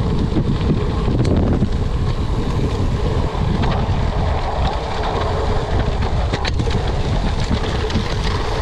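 Wind buffeting a bike-mounted action camera's microphone during a gravel-bike descent on a dirt track, mixed with the rush of tyres on loose gravel. A few sharp clicks break through now and then.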